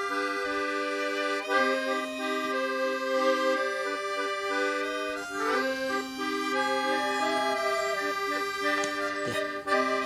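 Background music: steady held chords with a melody moving over them.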